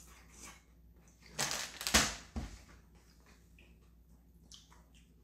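Black bean noodles (jjajangmyeon) slurped in one long noisy pull about a second and a half in, ending in a sharp knock, with a second smaller knock just after. Faint chewing and small clicks otherwise.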